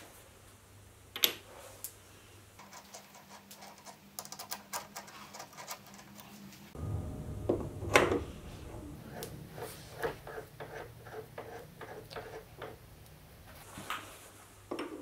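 Light metallic clicks and taps of a steel quick-change tool post being set down and fitted onto a lathe cross slide, with a sharper knock about a second in and another about eight seconds in, then a run of small clicks. A faint low hum sits underneath.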